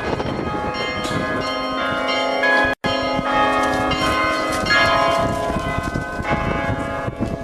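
Russian Orthodox church bells ringing in an Easter peal. Several bells of different pitches are struck again and again by their clappers, so the strikes overlap and hum on together. The sound cuts out for an instant about three seconds in.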